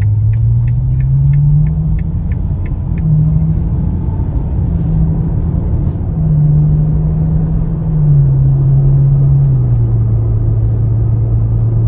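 Ferrari 812 Superfast's naturally aspirated V12 heard from inside the cabin while driving at low revs; its low note steps up and down several times as the revs change and settles lower near the end. A run of light, evenly spaced ticks, about three a second, sounds over the first three seconds.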